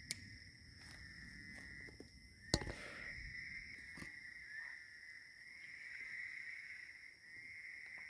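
Night insects chirring steadily in two high, unbroken bands, with a single sharp click about two and a half seconds in.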